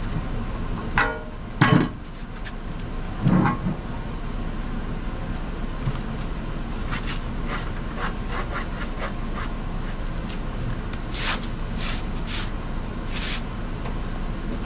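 Heavy steel fifth-wheel hitch being worked into its mount in a pickup bed: three loud clunks in the first few seconds, a run of lighter clicks, then four short scraping strokes near the end, all over a steady low hum.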